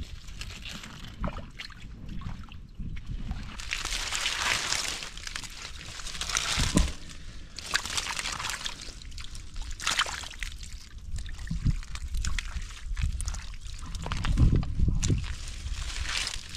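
Hands sloshing and splashing through shallow muddy water among water hyacinth while groping for fish in the mud. The splashes come in irregular bursts, with a louder one near the end.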